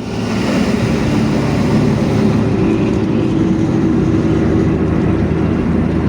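Intercity bus's diesel engine running through its 'ngorok' (snoring) exhaust: a loud, steady, deep drone.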